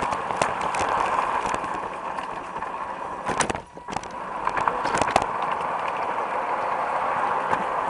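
LGB garden-scale Mallet model train running along its track, heard up close from a camera riding on the train: a steady whirr of motor, gears and wheels with scattered sharp clicks of wheels over the rails. About halfway through, the noise drops away for a moment, then picks up again.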